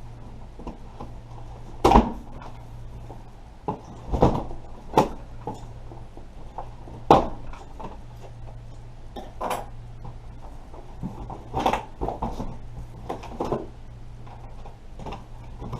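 Cardboard box being handled and worked open: irregular knocks, scrapes and rustles, the sharpest about 2 and 7 seconds in, over a steady low hum.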